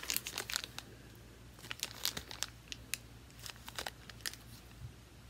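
Clear plastic sample bag crinkling as it is handled, in scattered short crackles.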